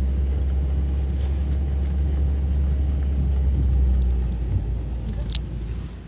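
Car driving on a dirt road, heard from inside the cabin: a steady low rumble of engine and tyres that eases off toward the end, with a sharp click about five seconds in.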